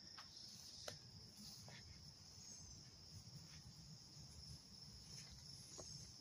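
Near silence with steady, high-pitched insect chirring and a few faint ticks.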